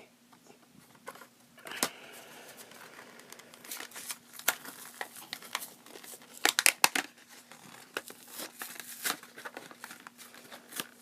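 Packaging of a 1:64 diecast car being crinkled and torn open: a run of irregular crackles and snaps that starts about a second and a half in and gets busier toward the middle.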